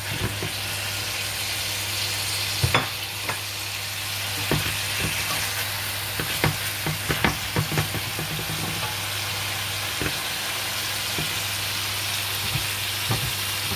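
Steady sizzling in a nonstick wok as parboiled broccoli, cauliflower and carrots stir-fry with black fungus and pork. A utensil clicks and knocks against the pan several times, mostly between about 2 and 8 seconds in and once more near the end.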